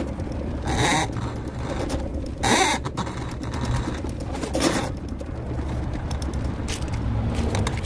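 Electric drum-type drain-cleaning machine running, its rotating cable fed by hand into a kitchen drain-stack cleanout to clear a kitchen backup. A steady low motor hum, with three short scraping rushes from the cable in the pipe about a second in, around two and a half seconds and near five seconds.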